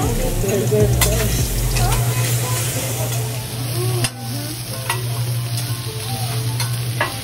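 Raw chicken, steak and shrimp sizzling on a hibachi flat-top griddle: a steady hiss over a steady low hum, with a few sharp clicks.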